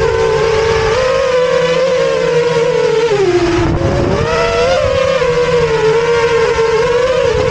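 Quadcopter's electric motors and propellers whining steadily, dipping in pitch about three seconds in and rising back as the throttle eases and returns.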